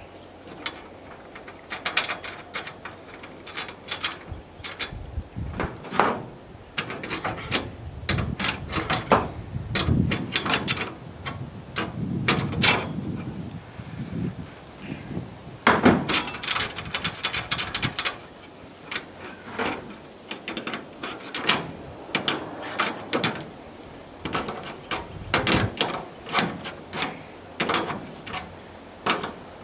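Irregular clicks, knocks and clatter of hand work with metal racking hardware, with a few heavier knocks and scrapes about ten to thirteen seconds in and around sixteen seconds.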